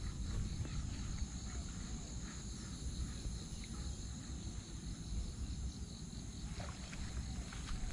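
Insects trilling steadily in the waterside grass: a continuous high, finely pulsed chirring with a second, higher steady band, over an uneven low rumble.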